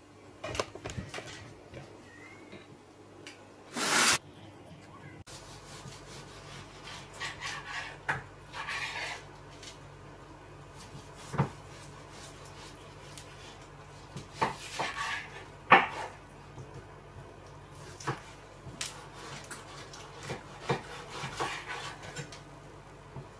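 Kitchen handling sounds: scattered knocks, scrapes and clinks of dishes and utensils, with one loud rasping swish about four seconds in. A low steady hum comes on about five seconds in.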